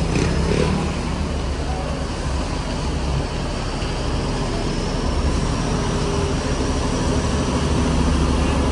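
Large diesel coach engine idling close by: a steady low rumble with a faint high whine over it, growing a little louder near the end.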